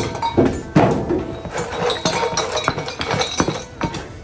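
Light metallic clinking and knocking: a string of irregular short knocks and clicks, some with a brief ringing.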